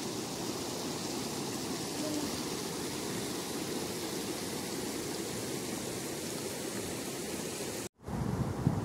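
Muddy flash-flood water rushing over gravel and stones in a wadi bed, a steady even rush. Near the end the sound cuts out briefly and returns louder and deeper.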